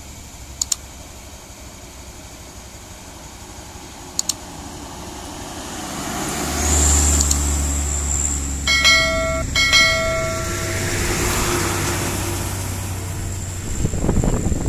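Two sharp double clicks in the first few seconds. Then a loaded truck's diesel engine swells loud as it labours up a steep climb past the microphone, and the truck sounds its horn twice, about a second each, before the engine fades away.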